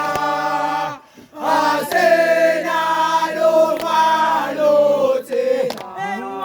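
A group of voices singing together a cappella in harmony, holding long chords. The singing breaks off briefly about a second in, then resumes, and changes to a new chord near the end.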